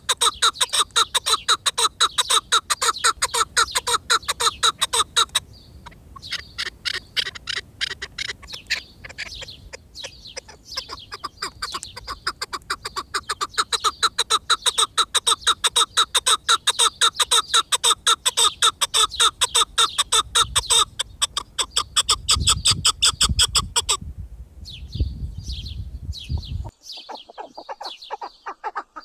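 Chukar partridge calling in a rapid, even series of sharp chuck notes, several a second. The series breaks off briefly about five seconds in and stops near the end, leaving a few scattered calls.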